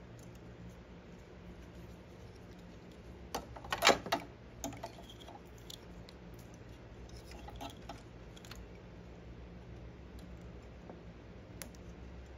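Plastic multi-pin wiring-harness connectors being unclipped and pulled apart by hand, a cluster of sharp plastic clicks about four seconds in, followed by scattered lighter clicks and rattles of the plugs and wires.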